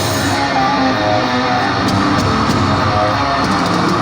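Live death metal band playing at full volume: heavily distorted electric guitars over bass and drums, with cymbal hits running through it.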